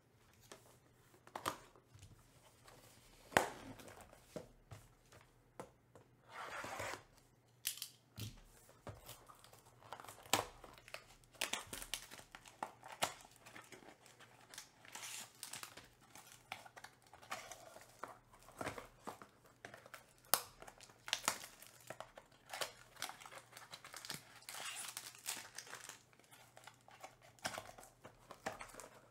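Plastic wrapping on a trading-card hobby box and its packs crinkling and tearing as it is opened by hand, with scattered sharp crackles and rustles and cardboard handling.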